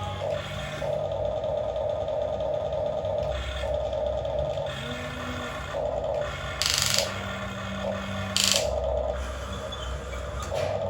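Electric motors of a radio-controlled excavator whining in short on-off spells as its arm and tracks are worked. Two brief, louder rushes of noise, one about two-thirds of the way in and one near the end.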